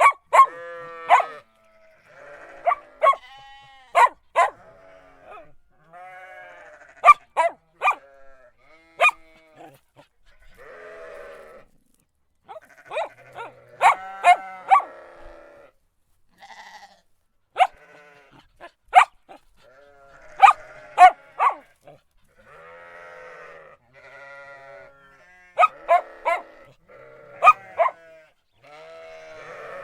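A dog barking in short clusters of one to three barks, every second or two, with softer, longer calls in between.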